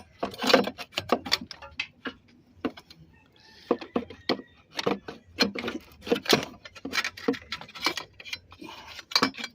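Irregular metallic clicks, knocks and rattles as a Nissan Altima's fuel injectors and fuel rail are wiggled and worked loose by hand.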